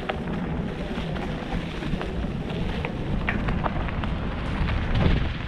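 Wind rushing over the camera microphone and mountain bike tyres rolling over leaf-covered dirt on a fast singletrack descent, with scattered clicks and rattles from the bike. A heavier thump about five seconds in.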